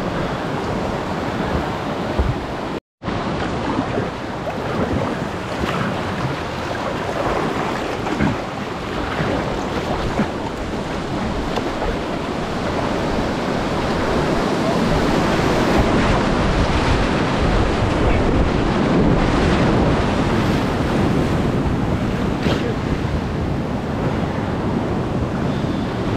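Whitewater of the River Tryweryn rushing over rapids, a steady loud wash of water heard close up. It cuts out for a split second about three seconds in and grows a little louder about halfway through.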